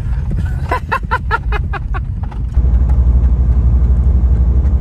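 Low, steady road and engine rumble inside the cabin of a BMW E46 diesel estate on the move, growing louder about two and a half seconds in.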